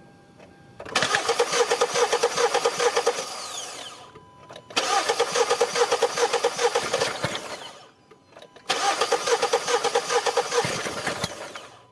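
A car engine cranked on its starter three times, each try about three seconds of fast, even churning that fades out without the engine catching: a no-start.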